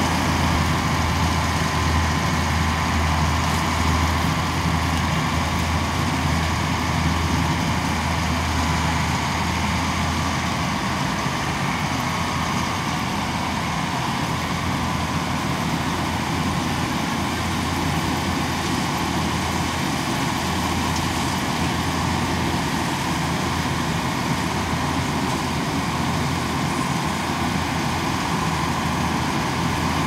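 Crop Star NSG 930 combine harvester running in the field while harvesting paddy: a steady, low diesel engine drone.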